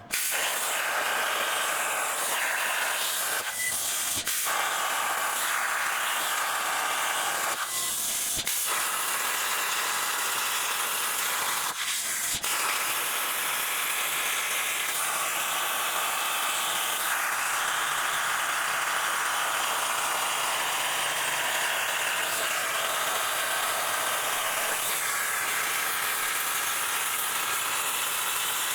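Plasma cutter cutting steel plate: a loud, steady hiss that starts suddenly and breaks off briefly a few times before carrying on.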